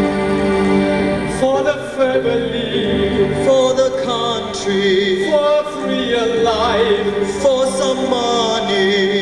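Music with a solo singing voice that wavers in pitch over steady held low notes; the voice comes in about a second and a half in.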